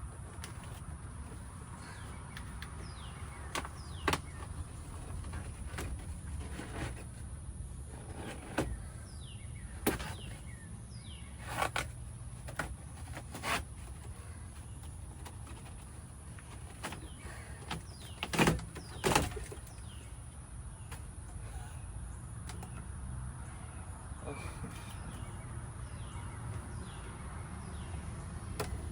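Scattered clicks and knocks from work on a BMW E30's interior, the loudest two close together about two-thirds of the way through, over a steady low hum.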